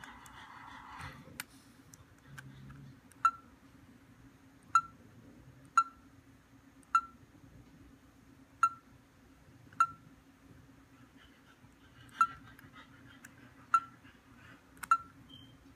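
Short electronic beeps from a homemade Space: 1999 Commlock prop as its side buttons are pressed, about nine single beeps of the same pitch at uneven intervals of a second or so, over a low steady hum.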